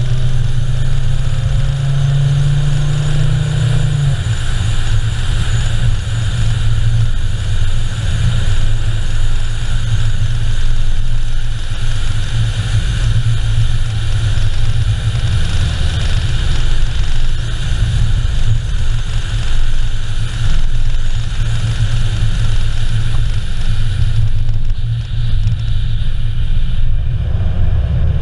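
Car driving steadily along a paved road: a continuous low rumble of engine and road noise with a constant hiss above it. Near the end the hiss eases slightly.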